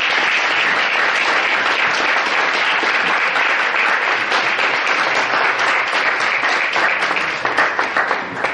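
Audience applauding steadily, thinning out into scattered individual claps near the end.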